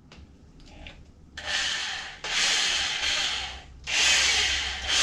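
Ozito hammer drill with a masonry bit grinding into a concrete floor in plain rotary mode, hammer action not yet on. After a few faint clicks it starts about a second and a half in and runs in three bursts with short pauses between.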